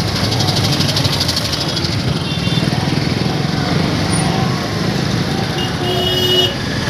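Busy street traffic: motorcycle engines running close by with a steady low rumble, and a couple of short high-pitched beeps, one about two seconds in and a louder one near the end.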